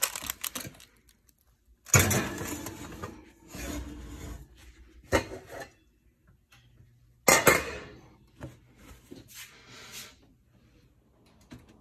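A stainless steel pot clanking and scraping against a wire oven rack as it is set into the oven. There are loud clanks about two seconds in and again a little past seven seconds, with smaller knocks between.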